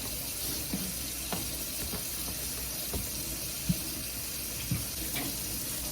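Kitchen tap running steadily into a sink while strawberries are rinsed, with a few faint knocks.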